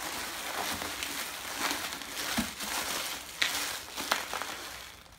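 Plastic bubble wrap crinkling and rustling as it is handled and pulled open by hand to unwrap a mug, with a few sharper crackles; the rustling dies away near the end.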